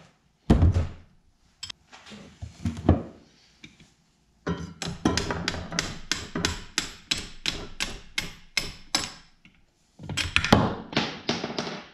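Hammer striking the end of a long quarter-inch socket extension to drive a wrist pin out of a piston in a Subaru boxer short block. A few separate knocks come first, then a quick, even run of strikes, about four or five a second, from about four seconds in, and another run near the end.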